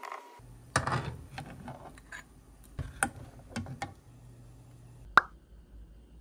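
Cherry tomatoes tipped from a small bowl into a pot of boiling water, with a splash about a second in, then a few light clinks and taps as they are scooped out with a mesh strainer ladle. A single sharp ringing clink near the end is the loudest sound.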